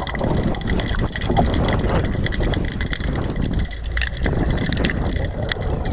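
Wind buffeting an outdoor microphone over the wash of surf breaking below, with scattered small clicks and knocks.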